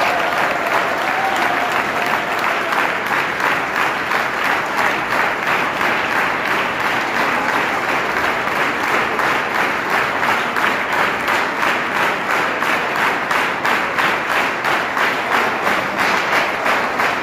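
A crowd clapping in unison, a steady rhythmic beat of about three claps a second.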